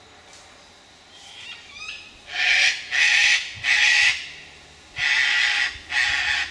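Sulphur-crested cockatoos screeching: five loud, harsh screeches of about half a second each, starting about two seconds in, with a short pause before the last two. A few softer calls lead into them.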